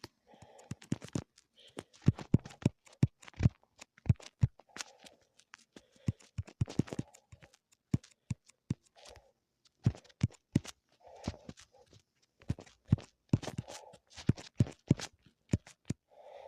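Irregular sharp clicks and knocks, at times several a second, with short muffled rustling bursts between them.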